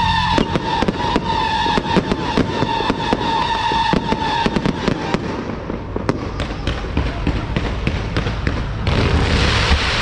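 Fireworks and firecrackers going off in rapid, irregular cracks and pops. A steady high whistle runs through the first four and a half seconds. A loud hissing rush begins near the end.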